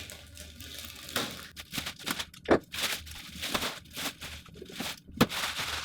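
Plastic wrapping crinkling and rustling in irregular crackles as it is handled and crumpled.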